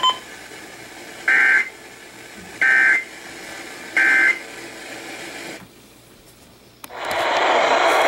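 Weather radio sounding an EAS/SAME digital header: three identical short bursts of screechy two-tone data noise about 1.3 seconds apart, the coded burst that opens an emergency alert, preceded by a brief beep. About seven seconds in there is a click, and a steady rushing noise starts and runs on loudly.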